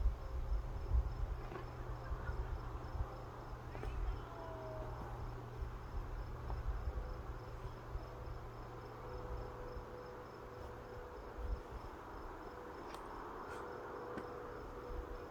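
Crickets chirping in a steady, evenly pulsing chorus over a low rumble that dies away about two-thirds of the way through.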